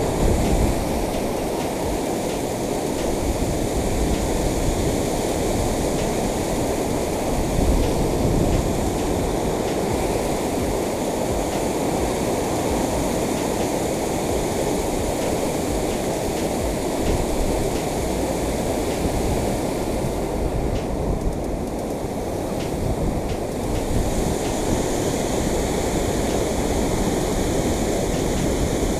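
Water pouring over a concrete dam spillway: a steady, unbroken rush of falling water.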